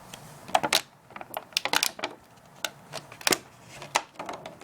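Packaging being handled as promo cards are worked out of a collection box: an irregular run of sharp plastic-and-cardboard clicks and crackles.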